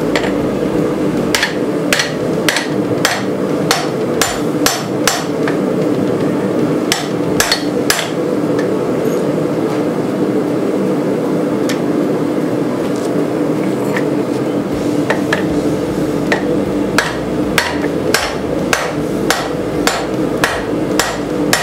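Hand hammer striking red-hot rebar on a steel anvil, drawing the bar out: runs of sharp blows about two to three a second, with a pause of several seconds in the middle. A steady drone runs underneath.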